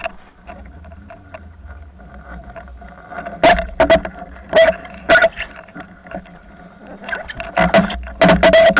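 A boat engine's steady hum carried through the water, broken from about three and a half seconds in by a series of loud, sharp knocks, several close together near the end.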